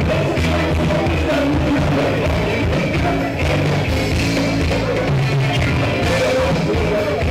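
A rock-and-roll style song with singing, played loud and steady.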